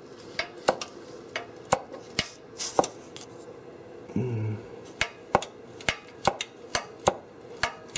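Ratcheting wrench clicking in short back-and-forth strokes, about two clicks a second, on a tight fine-thread exhaust hanger bracket bolt that only moves one or two clicks per swing.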